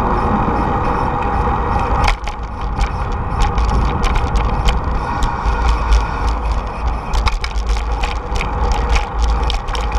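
Wind rumble and rolling noise picked up by a bike-mounted camera. About two seconds in, irregular rattling knocks set in as the bicycle rolls over the bumps and seams of a concrete sidewalk, jolting the bike and its camera mount.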